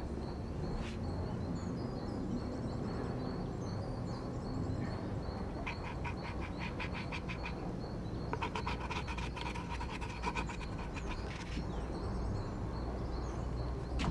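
An electric doorbell ringing twice, a rapid rattling ring, short at first and then longer, over a steady low background rumble.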